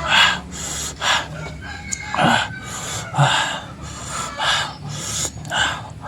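A person panting with sharp hissing breaths, about one a second, from the burn of very spicy chilli-hot food.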